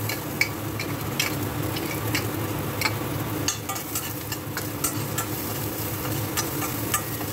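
Chopped garlic sizzling in hot oil in a stainless steel pan, with a metal spoon scraping and clinking against the pan as it is stirred. A steady low hum runs underneath.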